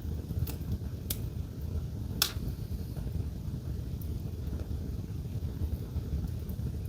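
Wood fire crackling in a fireplace: a few sharp pops, the loudest about two seconds in, over a steady low rumble.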